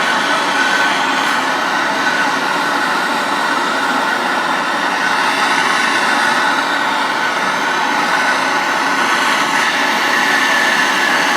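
A workshop power tool running steadily and without a break, a loud even whir started suddenly, used to free tight, seized bolts on a steering box housing.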